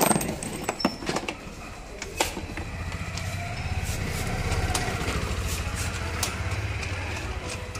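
Metal socket tool clicking and knocking against bolts and the scooter's plastic body in the first couple of seconds. After that a small engine, like a motorcycle's, runs steadily at idle in the background.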